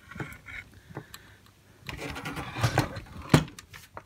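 Faint handling noise: scattered light clicks and rustles, with one sharper click a little over three seconds in.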